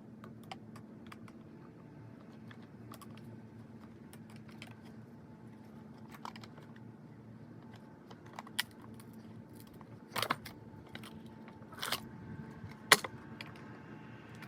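Scattered light clicks and clinks of small hardware, such as screws, being handled, with three louder knocks in the last few seconds, over a steady low hum.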